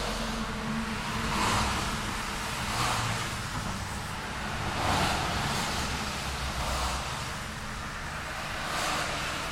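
City street traffic: cars passing one after another, their tyre and engine noise swelling and fading several times over a steady low hum of vehicles.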